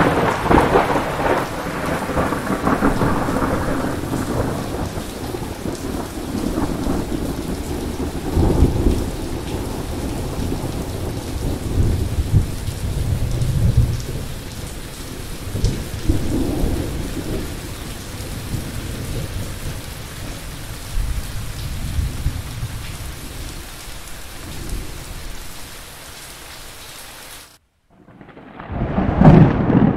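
Thunderstorm: steady rain with thunder rumbling through it in repeated swells. The loudest swells come about a second in and again around nine and fourteen seconds in. Near the end the sound cuts out for about a second, then a loud peal of thunder starts.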